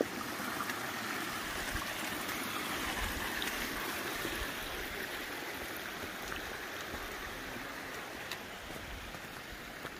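A small stream running: a steady rush of flowing water, easing off slightly near the end.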